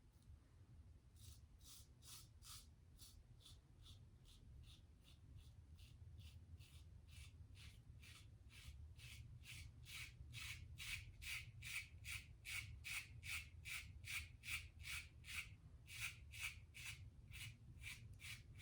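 Vintage Gillette Tech fat-handle safety razor, fitted with a mild 3D-printed #1 base plate, scraping through lathered stubble in short strokes about two a second. The strokes grow louder about halfway through.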